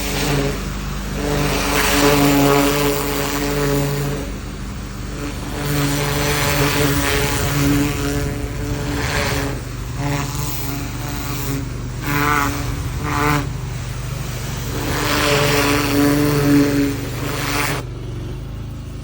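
Pressure washer running steadily while its jet blasts weeds and soil, the rushing spray swelling and falling in repeated surges every few seconds.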